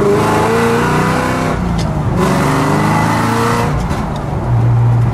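Ford Coyote V8 of a 1948 Ford Woody restomod accelerating hard, heard from inside the cabin. The engine note climbs, breaks off briefly about a second and a half in as a gear is changed, climbs again, then drops back to a steady lower drone near the end.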